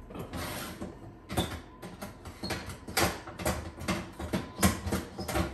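Metal oven rack being pulled out and repositioned inside an oven: an irregular run of clanks and scrapes as the wire rack knocks and slides against the oven's rack guides.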